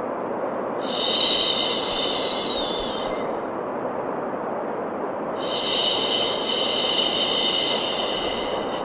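Two long, drawn-out "shhh" shushes for soothing a baby, the first starting about a second in and the second about halfway through, over a steady bed of white noise.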